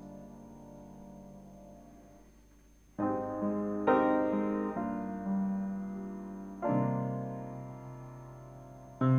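Solo piano: a held chord dies away over the first three seconds, then slow chords are struck one after another, a second or more apart.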